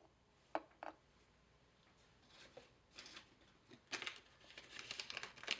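Thin plastic parts bag being handled and rustled, crinkling in irregular bursts that grow busier toward the end, after two light clicks under a second in.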